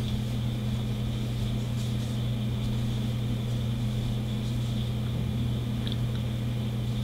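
Steady electrical hum with a low tone and its overtone, plus a faint high whine; no crochet sound stands out above it.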